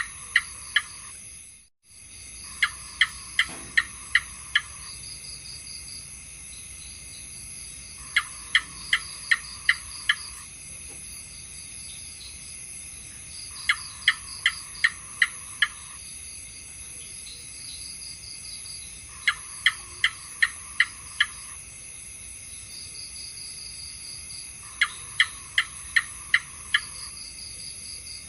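House gecko calling: bouts of about six sharp, evenly spaced chirps, each bout about two seconds long, repeating every five or six seconds. A steady high-pitched hum runs underneath, with a brief dropout about two seconds in.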